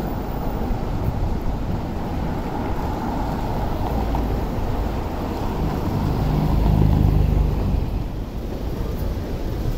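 Steady road traffic noise, with a passing vehicle growing louder about seven seconds in.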